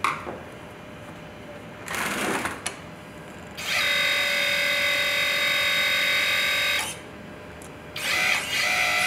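Electric hydraulic pump of a 1:14 scale RC hydraulic excavator whining steadily for about three seconds, then starting up again about a second later, as the oil pressure is tested after adjusting the relief valve. A short rustle comes before the first run.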